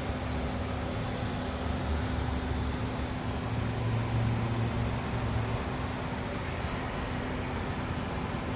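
Car driving with steady road and running noise and a steady low whine from a wheel under braking, which the owner puts down to worn brake pads or loose bolts.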